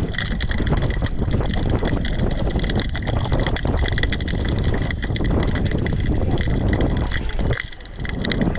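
Wind buffeting the microphone: a loud, steady noise that dips briefly near the end.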